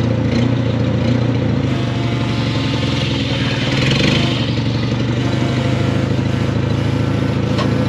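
Diesel engine of a JCB telehandler running steadily, swelling briefly about halfway through.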